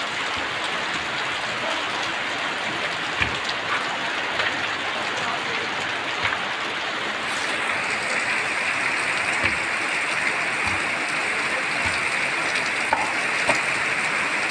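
Steady rain falling, with a few scattered short knocks; the hiss changes in tone about seven seconds in.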